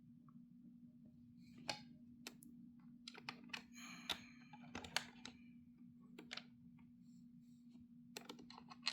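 Faint, scattered clicks and taps of plastic parts and screws being handled as a robot vacuum is put back together, over a low steady hum.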